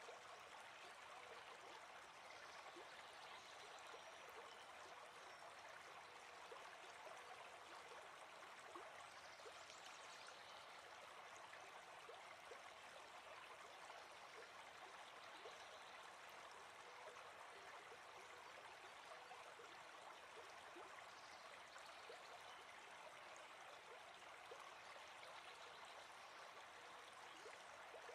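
Near silence: a faint, steady rush like flowing water.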